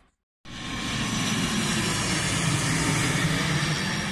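ATR 72-500 turboprop airliner flying overhead, its two Pratt & Whitney PW127 turboprop engines giving a steady drone with a strong low hum. It begins after about half a second of silence.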